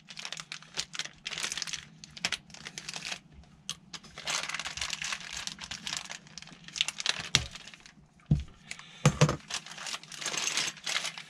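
Clear plastic packaging crinkling and tearing as it is cut and pulled off a metal pannier rack, in irregular bursts, with a few sharp knocks about eight and nine seconds in.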